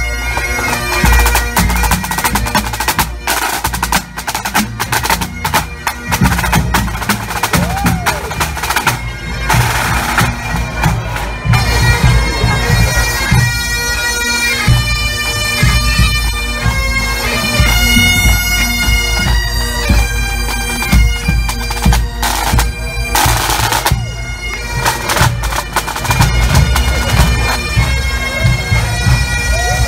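Pipe band playing on the march: Great Highland bagpipes sound their steady drones under a shifting chanter melody, with bass and snare drums beating.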